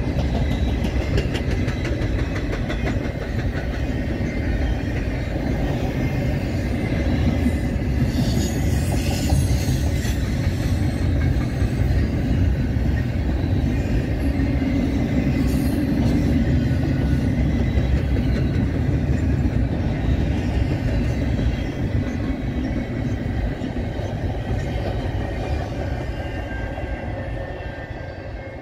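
Double-stack container cars of a CN intermodal freight train rolling past, a steady rumble of steel wheels on rail that fades over the last few seconds as the train draws away.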